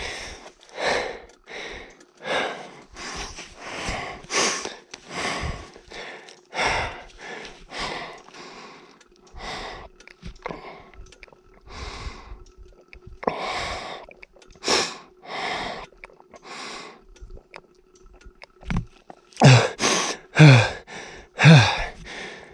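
A person panting hard, each rapid breath in and out audible about twice a second, with a few louder voiced gasps near the end: a rider winded from exertion at high altitude.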